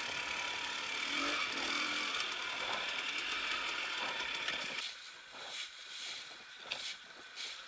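Enduro motorcycle engine running steadily, dropping away suddenly about five seconds in, after which only light scattered clicks and rustling remain.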